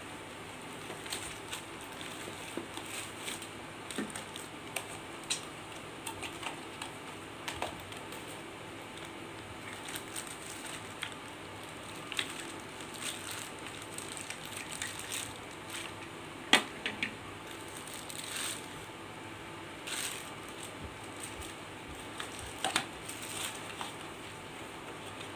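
Unboxing handling noise: a cardboard box and a plastic bag crinkling, and plastic phone-holder parts clicking and knocking on a glass tabletop, with one sharper knock a little past the middle. A faint steady hum runs underneath.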